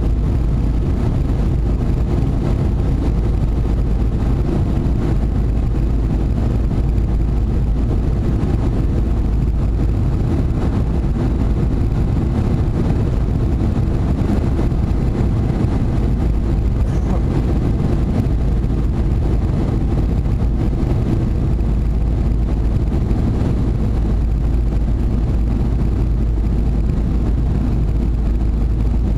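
Steady cabin noise of a Boeing 747 in flight, heard inside the cabin from a window seat over the wing: a constant low rumble of the jet engines and the airflow past the fuselage.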